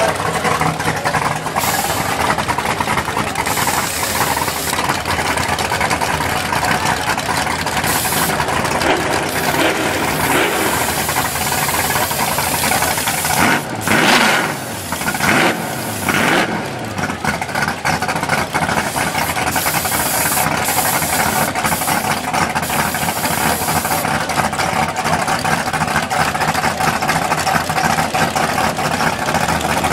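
Race car engine running loud and rough at idle, with crowd voices behind it. The engine revs up and falls back a few times around the middle.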